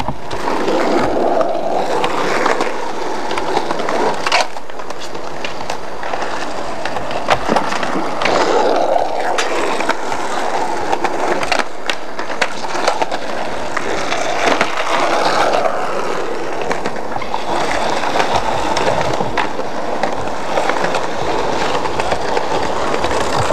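Skateboard wheels rolling on concrete, with many sharp clacks from the board hitting the ground and ledges during tricks.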